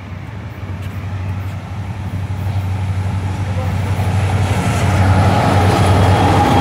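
Diesel freight locomotives, a BNSF EMD SD70ACE leading with a CSX unit behind, running as they approach and pass close by, with a steady low engine hum that grows steadily louder.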